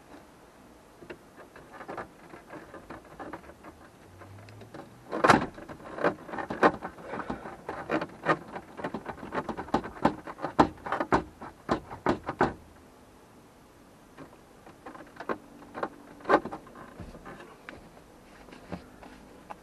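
Irregular clicks, knocks and rattles of plastic gauge cluster trim being handled on a 1991 Miata dashboard. They come in a busy run of a few seconds through the middle, with a few more near the end.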